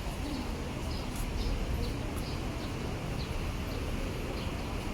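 Small birds chirping, short high chirps about twice a second, over a steady background of street and crowd noise with a low rumble.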